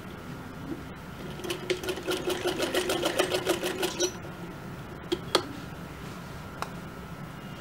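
Sewing machine stitching a short run, the needle clicking about six or seven times a second for roughly two and a half seconds, then stopping. A few single clicks follow.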